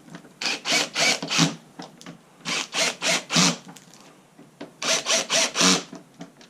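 Power screw gun backing out the small screws holding the headlight assembly, set to low torque. It runs in three short bursts of about a second each, every burst pulsing quickly.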